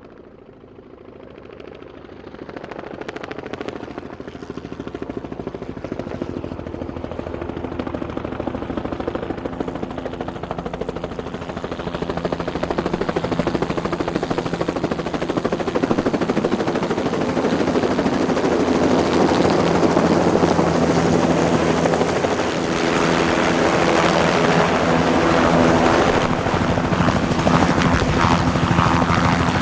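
Helicopter rotor chop and turbine whine growing steadily louder as the helicopter approaches.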